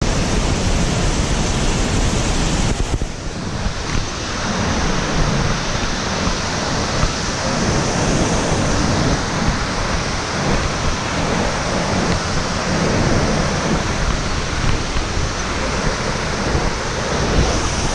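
Waterfall rushing: a steady, loud wash of falling water, briefly softer about three seconds in.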